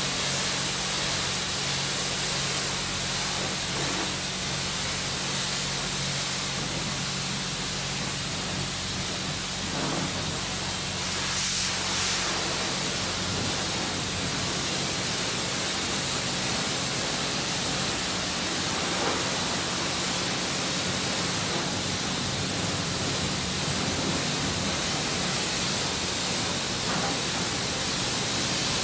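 Self-serve car wash spray wand hissing steadily as it mists clear coat conditioner over a car, with a steady low hum underneath.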